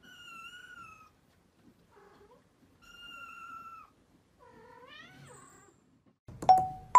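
Young kittens mewing: four short, high-pitched mews a second or so apart, the last one rising in pitch. Near the end comes a sudden, much louder click with a brief tone.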